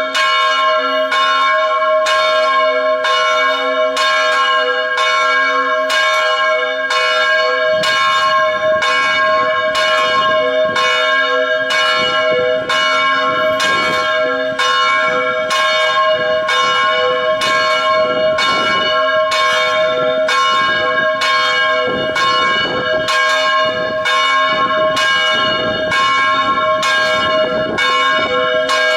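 Church bell ringing, struck repeatedly in a steady, rapid rhythm, its tones ringing on under each new stroke.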